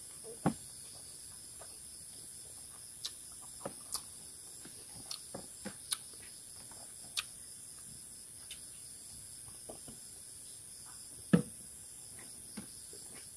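Close-up eating sounds: a man eating rice and boiled chicken with his fingers, scattered short clicks and smacks of chewing and of fingers working rice on a plastic tray. The loudest is a single smack about two seconds before the end. A steady high-pitched hiss runs underneath.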